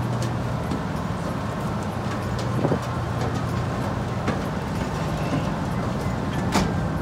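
Steady low drone of a large running engine, with three sharp knocks spread through it from footsteps on the metal gangway steps.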